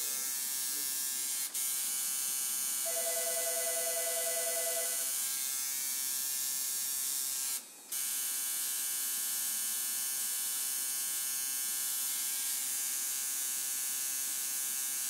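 Tattoo machine buzzing steadily over a high hiss. The buzz cuts out for an instant about a second and a half in, and again for about a third of a second about halfway through.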